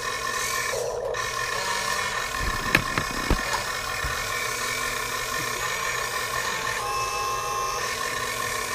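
A steady hum with two fixed whining tones, and a few sharp knocks about three seconds in from the camera being handled.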